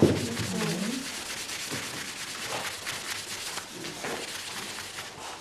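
Tissue paper rubbed briskly back and forth over a wax painting on card, a continuous dry papery scrubbing made of quick strokes. This is the buffing stage of encaustic, polishing the cooled wax to a gloss.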